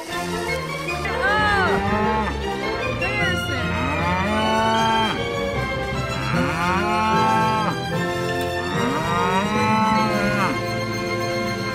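A large farm animal calling loudly again and again, about five long calls, each rising and then falling in pitch, with lower drawn-out sounds in between.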